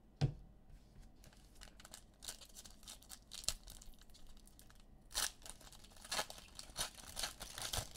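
Trading-card pack wrappers crinkling and tearing open, with cards being handled, in a string of short crackles. A soft knock comes just after the start.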